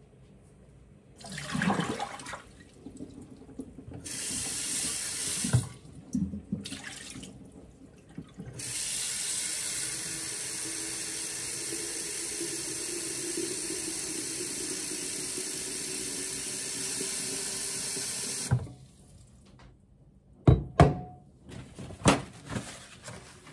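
Kitchen tap running steadily into a round glass vase for about ten seconds, filling it with fresh water, after a few shorter bursts of water splashing in the sink. Near the end, a few sharp knocks and the rustle of paper towel pulled from the roll.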